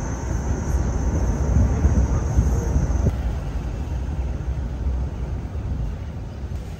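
Engine and road noise of an open-sided songthaew pickup taxi heard from its rear passenger bench: a steady low rumble that gradually eases off.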